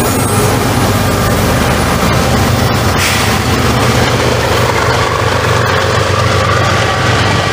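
Freight train passing loudly, with a diesel locomotive engine running steadily under the noise of the train.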